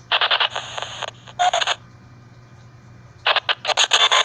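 White-noise EVP (ghost-box style) audio playing: choppy bursts of hissy static with garbled, voice-like fragments, broken by a pause of about a second and a half in the middle, over a steady low hum.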